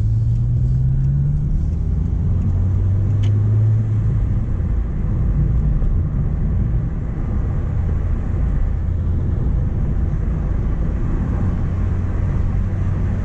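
Renault Clio Mk1's D7F four-cylinder petrol engine and road noise heard from inside the car while driving. The engine note rises slightly over the first second or so, then settles to a steady drone.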